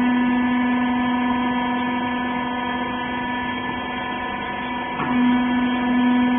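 Wiper horizontal bagging baler's motor and pump running with a steady, pitched hum. About five seconds in, a brief sweep is heard and the hum grows louder.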